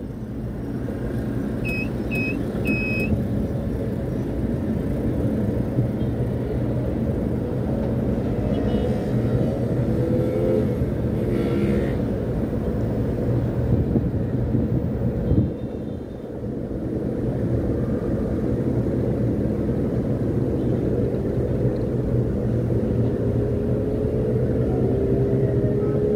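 Steady rumble and hum of a crane's drive machinery heard from inside the operator's cab during a lift, with a whine that rises slowly in pitch about eight seconds in and again near the end as the drives speed up. Three short high beeps sound about two seconds in.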